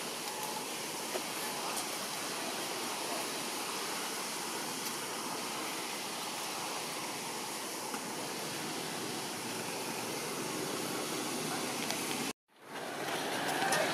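Steady, even outdoor background hiss with no distinct events. It cuts out abruptly near the end and comes back a little louder.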